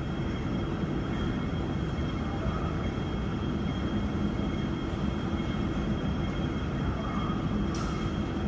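Steady mechanical rumble with faint steady high-pitched tones over it, and a brief click near the end.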